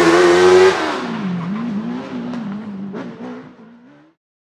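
Motorcycle-engined Fiat 500 proto race car pulling away at high revs, then its engine note drops and climbs again several times, getting quieter as the car moves off. A sharp single crack about three seconds in; the sound fades out near the end.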